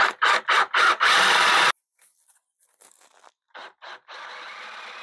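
Ryobi cordless drill boring into plywood with a 1.5-inch Forstner bit: several short bursts of cutting, then a steady run of under a second that stops abruptly. After a pause come quieter short bursts and a second run of about a second.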